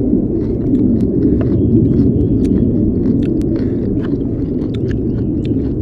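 Close-up chewing of rice and curry, with scattered mouth clicks and spoon taps, over a steady low rumble.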